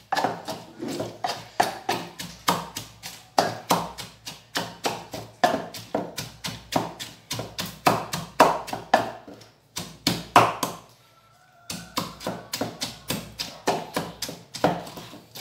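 Wooden pestle pounding in a wooden mortar, mashing a wet seasoning of onion and cilantro: a steady rhythm of strikes, about three a second, with a brief pause about two-thirds of the way through.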